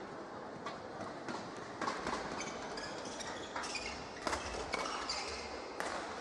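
Badminton rackets striking a shuttlecock in a fast doubles rally: sharp cracks at irregular intervals, about one a second. Short squeaks of court shoes come between the hits, over the steady hum of a large hall.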